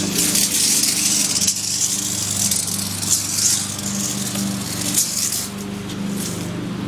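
A tape measure blade scraping and rattling over rough asphalt as it is pulled out further, loudest in the first few seconds, over a steady low engine hum.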